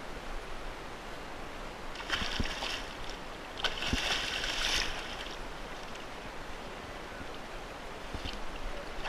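Hooked fish thrashing and splashing at the surface beside a kayak, in two bursts about two and four seconds in, the second longer and louder, over a steady hiss of wind and lapping water.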